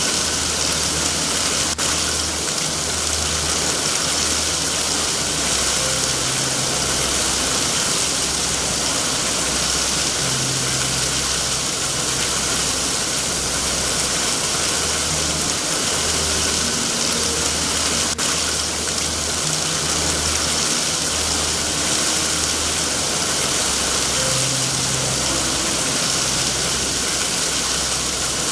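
Steady heavy rain hiss with a low rumble underneath that swells and fades, and two sharp clicks, one about two seconds in and one about eighteen seconds in.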